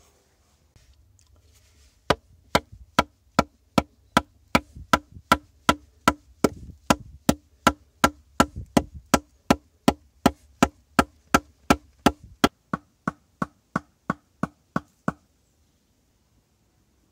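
Wooden digging stick striking hard, compacted earth at the bottom of a pit in a steady rhythm, about two and a half knocks a second. The strikes start about two seconds in, turn softer in the last few seconds and stop shortly before the end.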